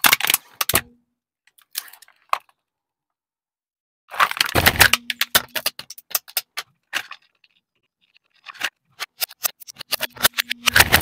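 Plastic toy excavator creaking and cracking under a car tyre: bouts of dense snapping and crackling clicks with silent gaps between them, and a dull thump about halfway through.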